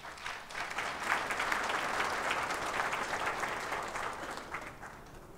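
Audience applauding. The clapping swells within the first second and fades out toward the end.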